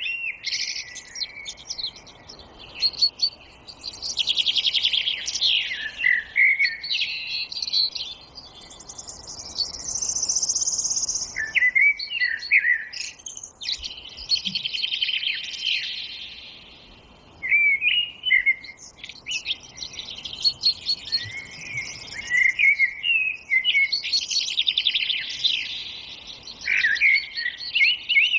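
Several songbirds singing and chirping together, short whistled phrases and fast trills overlapping with brief lulls between them.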